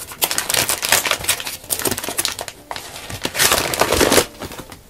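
Heavy kraft-paper rice sack crinkling and crackling as it is handled and pulled open by hand. The crinkling is loudest about three and a half seconds in.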